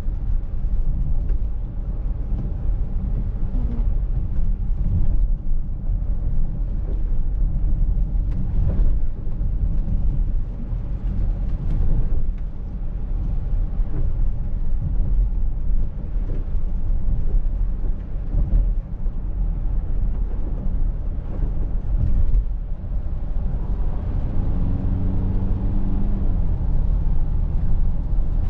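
Cabin noise of a Mercedes-Benz GLC 300de 4Matic on the move: steady low road and tyre rumble with wind noise. A pitched engine note comes in near the end.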